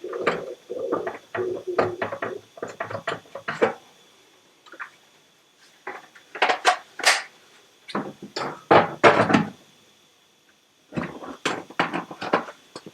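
Hammer tapping on a steel car body panel in bursts of quick blows with short pauses between, working out oil canning in the panel.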